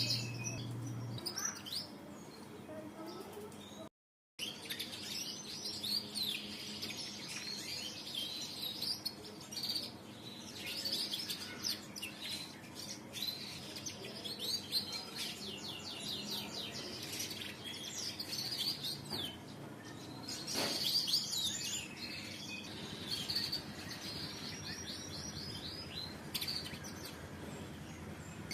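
Domestic canary singing a long, varied song of rapid chirps and fast trills. The sound cuts out completely for a moment about four seconds in.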